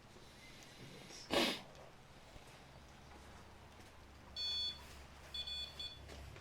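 An electronic device beeps twice, two high steady tones each about half a second long, about a second apart near the end. About a second in there is one brief rustling noise, the loudest moment.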